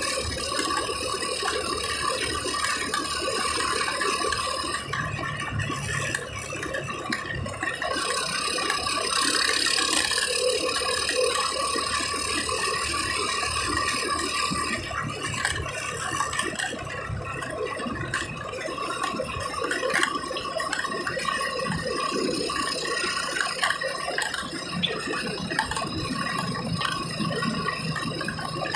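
Car cabin noise while driving: engine and road noise with a constant rattle of loose interior parts.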